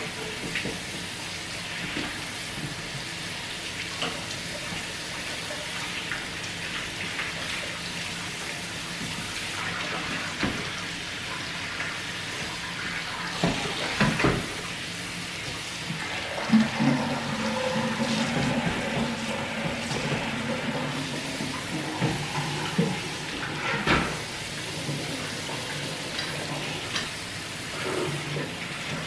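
Kitchen faucet running steadily into a sink while the pot and lid of a thermal cooker are washed under it, with a few knocks as the pieces are handled against the sink. About halfway through, a low tone joins and slowly rises in pitch for several seconds.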